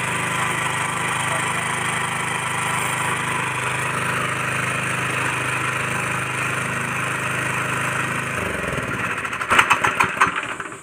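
Small petrol engine of a power weeder idling steadily, then stopping a little over eight seconds in, with a short run of sharp chugs as it dies away.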